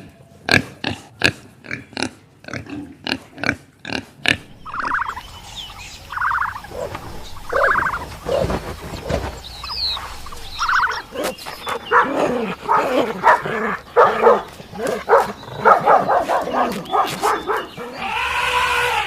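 Pigs grunting and squealing: short grunts about three a second at first, then separate squeals, then many calls overlapping.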